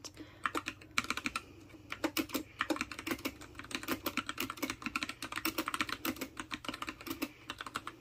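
Typing on a Freewrite smart typewriter's mechanical keyboard: a fast, uneven run of key clicks, a short sentence typed out in one go, starting about half a second in and stopping shortly before the end.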